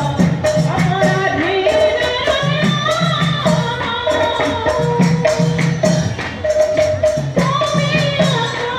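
Women's group singing an Assamese thiyo naam folk song, with rhythmic clashing of brass hand cymbals (taal) struck by the dancers.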